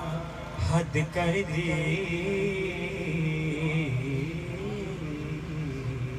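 A man singing a manqabat, an Urdu devotional poem in praise of Imam Hussain, into a microphone in long, ornamented held notes, over a low steady drone.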